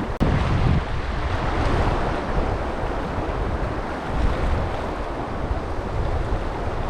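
Steady rush of a mountain stream's flowing water, with wind buffeting the microphone. A short click comes just after the start.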